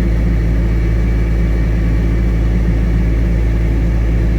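Heavy engine running steadily at constant speed: a loud, even low drone that starts abruptly.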